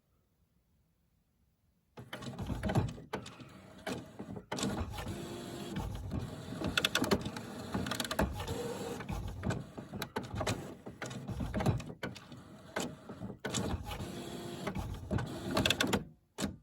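HP Photosmart Plus inkjet printer's mechanism running and making odd noises, with many sharp clicks along the way. It starts about two seconds in and stops shortly before the end, followed by one brief click.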